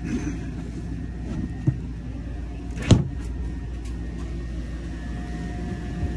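Dinette cushions and bedding being handled, with a thump, then a sharp knock about three seconds in as something bumps against the furniture, over a steady low hum.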